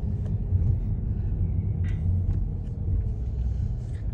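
Steady low rumble of a car driving slowly, heard from inside the cabin, with a few faint clicks.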